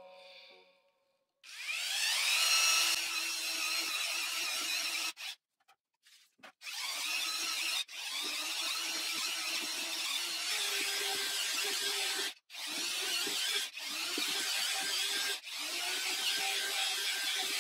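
Parkside PFMRA 20-Li A1 cordless paddle mixer motor spinning up with a rising whine about a second and a half in, then running steadily. It cuts out and restarts several times, with short stops.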